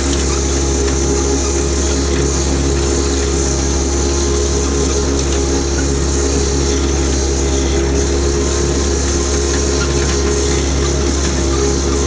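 Jacobsen HR-5111 rotary mower's diesel engine running at a steady speed while the machine is driven, a loud, even drone that holds without change.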